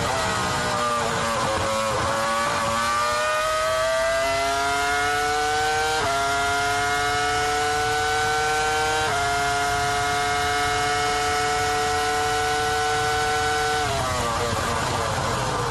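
Onboard sound of a Ferrari F2004 Formula One car's 3.0-litre V10 engine. The pitch falls at the start as it slows and shifts down, then climbs under hard acceleration with upshifts about six and nine seconds in. It holds a high, nearly steady note, then falls again near the end as the car shifts down.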